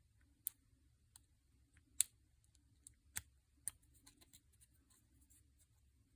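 Faint metallic clicks and taps of a pick working the pins of a seven-pin tubular padlock core during picking. The clicks are scattered, with a few sharper ones, the loudest about two seconds in.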